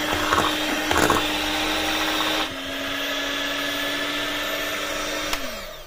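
Electric hand mixer running steadily as its beaters whip cream, condensed milk and strawberry purée, with a knock about a second in. Its hum drops a little in pitch about two and a half seconds in, and near the end it is switched off and winds down.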